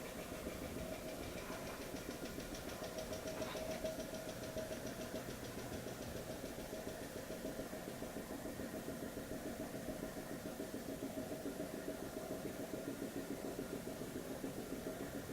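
Furukawa FVS-3 vacuum packaging machine running under test, its vacuum pump going steadily with a fine, rapid pulsing. A faint high whine over it fades out in the first few seconds.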